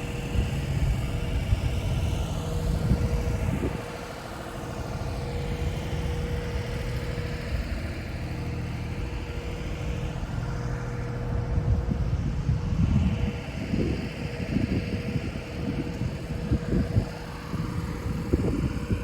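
An engine running steadily with a constant hum, with wind buffeting the microphone in gusts during the second half.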